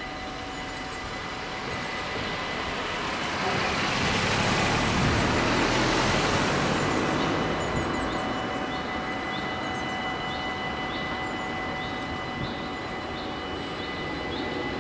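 Dutch level-crossing bells ringing steadily while the barriers are down, awaiting a train. A rushing noise swells and fades about four to seven seconds in, and the sound grows louder again near the end as the train approaches.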